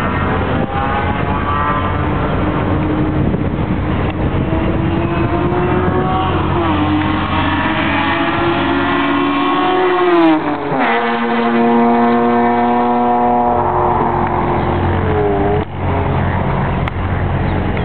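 A car's engine pulling hard along a racetrack, its note climbing, then dropping sharply in pitch as it passes close by about ten seconds in; a shorter falling pass follows near fifteen seconds. A steady low engine rumble runs underneath.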